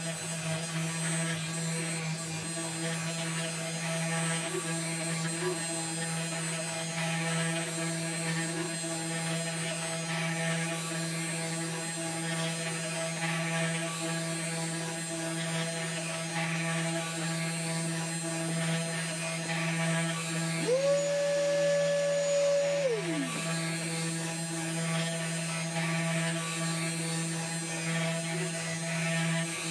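SainSmart Genmitsu 3018-PROVer V2 desktop CNC router running steadily as its spindle and end mill cut a star outline into wood, a constant electric motor hum with a hiss of cutting. About 21 seconds in, a higher whine rises, holds for about two seconds, then drops away.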